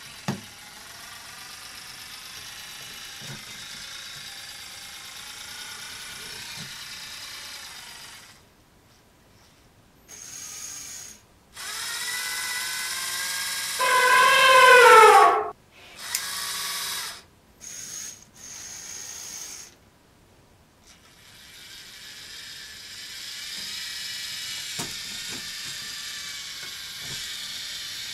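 Lego EV3 motors and plastic gear trains whirring and clicking as the robot elephant walks and moves its trunk. The motors run in several stretches with pauses between them, and the loudest stretch, past the middle, drops in pitch.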